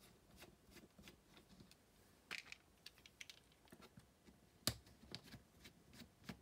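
Faint, scattered clicks and taps of a small screwdriver and fingers on the screws and plastic case of an Olivetti Quaderno laptop, with a sharper click a little after the middle.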